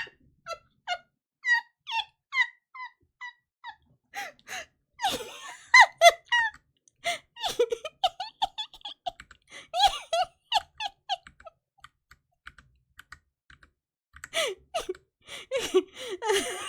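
High-pitched, squeaky laughter: a long run of short laughs with a falling pitch, about two or three a second, a pause of a couple of seconds, then more laughing near the end.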